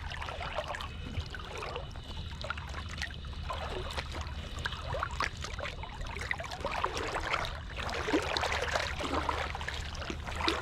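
Shallow water lapping and trickling, with irregular small splashes and gurgles, around a wading angler fighting a hooked fish.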